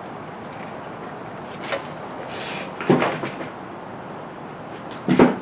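A few separate clunks and clicks from hand-handling metal engine parts and tools, such as head bolts being set into a cylinder head. A small click comes about two seconds in, a louder clunk near the middle, and the loudest knock near the end.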